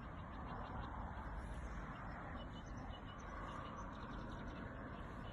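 Steady outdoor background noise with faint, short bird chirps over it.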